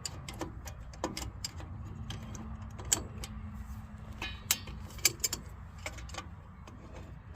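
Pliers clinking against the steel springs and hardware of a 1959 Ford F-100 drum brake as a brake shoe spring is worked off, a string of irregular metallic clicks over a steady low hum.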